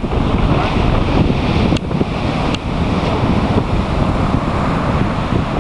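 Strong wind buffeting the microphone, with the wash of sea surf under it. Two faint clicks come about two seconds in.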